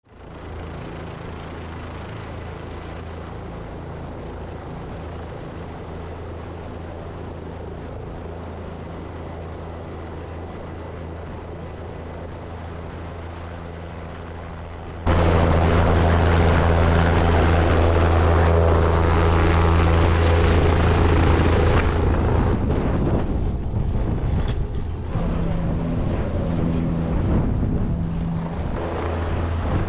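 Helicopter running, a steady low hum of rotor and engine. About halfway through it suddenly becomes much louder and fuller, then eases off somewhat after several seconds.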